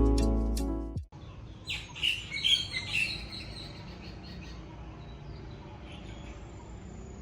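Background music fading out about a second in, followed by a short flurry of bird chirps a second or two later, then faint outdoor ambience.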